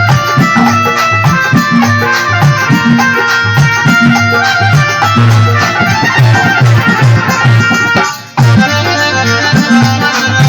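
Instrumental interlude of a Rajasthani folk devotional song: a reed instrument plays the melody over a steady drum beat. The music drops out for a moment about eight seconds in, then resumes.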